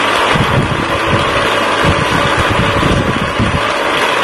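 Hasbro Bed Bugs game's motor running steadily and vibrating the plastic bed, with the loose plastic bugs rattling against it.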